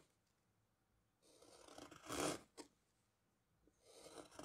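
Steel carving gouge slicing through tulip tree wood, cutting facets on the outside of a bowl. There are two cuts: one about a second in that swells over about a second and ends with a short click, and another that begins near the end.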